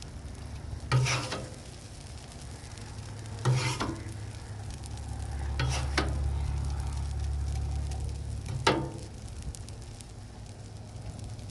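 Food sizzling on a Blackstone flat-top griddle, with four short scraping clacks of metal on the steel griddle top about every two and a half seconds, over a low steady rumble.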